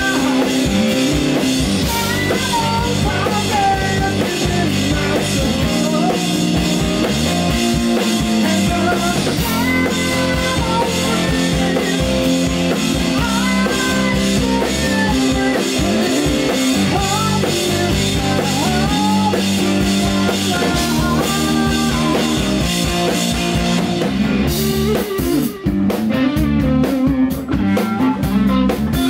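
Live rock trio playing: electric guitar, electric bass and drum kit, with a gliding melodic lead line over the top. About 25 seconds in, the sound thins out into choppy electric guitar.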